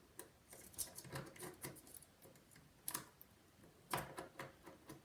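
Faint small clicks and taps of a precision screwdriver working tiny screws on an iPhone 5's logic board, with two sharper clicks about three and four seconds in.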